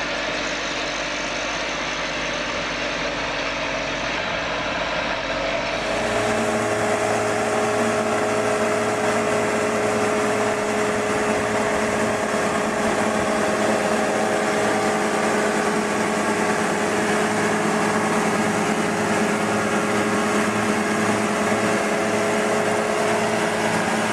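Tractor diesel engines running in the field: for about the first six seconds a tractor pulling a plough, then a cut to a New Holland 110-90 tractor's diesel engine running with a steady drone.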